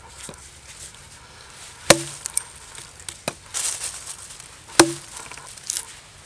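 Small axe chopping into a green stick resting on a log: two hard blows about three seconds apart, each with a short woody ring, and lighter knocks in between.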